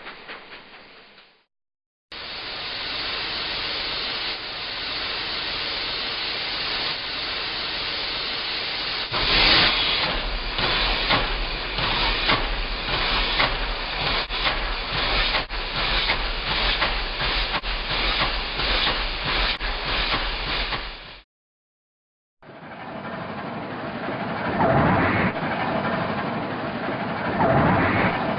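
Steam locomotive sound effects: a steady hiss of steam, then rhythmic chuffing over a low rumble for about twelve seconds, ending abruptly. After a short silence, a different engine sound starts near the end.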